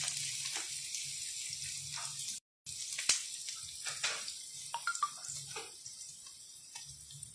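Chopped onions and green chillies sizzling in hot oil in a frying pan, with scattered small pops and crackles; a wooden spatula stirs them at the start. The sound briefly cuts out about two and a half seconds in and grows slightly fainter toward the end.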